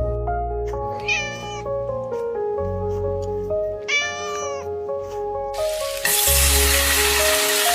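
Two short, high-pitched cat meows over background music. About six seconds in, a loud steady hiss sets in under the music.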